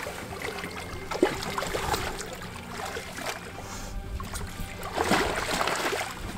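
Water splashing and sloshing around a landing net as a hooked striped bass is netted beside the boat, with a sharper splash about five seconds in. Music plays underneath.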